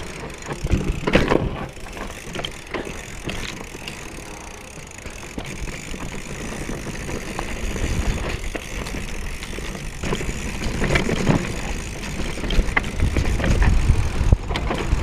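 Mountain bike rolling down a dirt trail, its tyres crunching over dirt and stones and its frame and chain rattling, over a steady low rumble. The ride gets rougher and louder later on.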